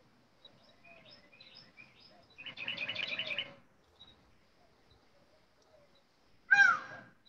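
Small birds chirping in the background, picked up by a video-call microphone, with a quick trill of rapidly repeated high notes about halfway through and one louder, sharp call near the end.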